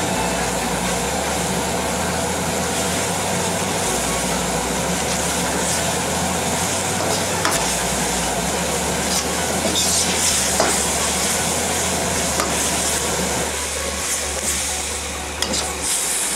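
Ostrich steak cooking in a wok of sweet soy and coconut-milk sauce over a gas burner turned up high: steady sizzling over a low burner rumble, with a few sharp clicks of stirring.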